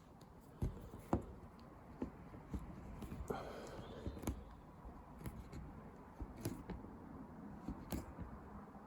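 Scattered light clicks and knocks with a brief rubbing squeak about three seconds in: hand work fitting window glass into a rubber glazing seal.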